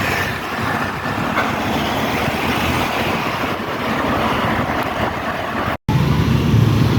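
Bus and road-traffic noise: a steady rush of engine and tyres. After a sudden cut just before six seconds in, a louder low engine rumble.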